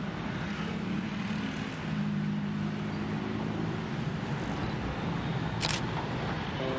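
Steady road-traffic noise with a low engine drone, and one short sharp click about five and a half seconds in.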